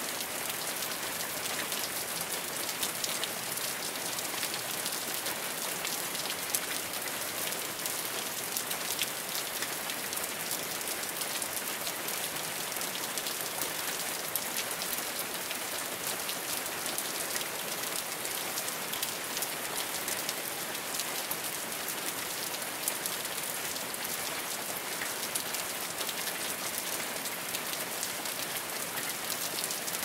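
Hurricane sound effect of heavy rain coming down steadily: a dense, even hiss full of small drop ticks.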